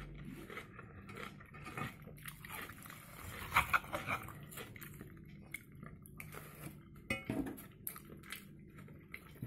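Metal spoon scraping and clinking against a frying pan as fried egg is scooped up, in scattered short strokes, loudest a few seconds in.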